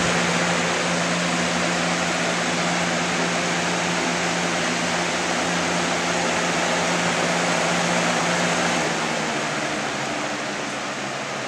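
Three-speed, five-blade box fan running with a steady rush of air and a low hum; about nine seconds in the hum changes and the sound eases down and gets quieter.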